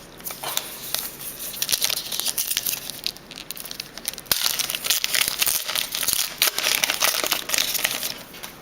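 Plastic-and-foil wrappers of hockey trading card packs crinkling and tearing as a pack is torn open by hand, a dense run of crackles that gets busier and louder about four seconds in.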